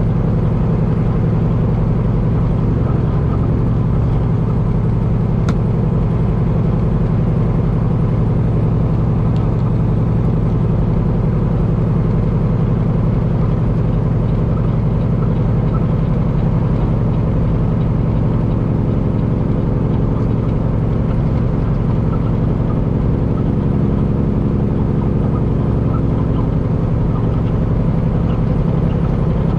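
Semi truck's Cummins diesel engine running steadily at an even pitch under way, with one faint click about five seconds in.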